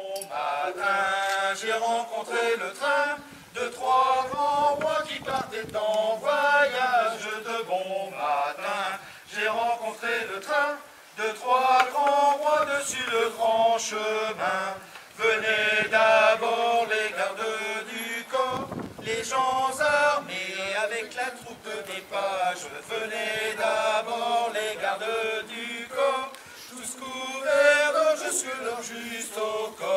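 Choir singing in long phrases, with short breaks between them.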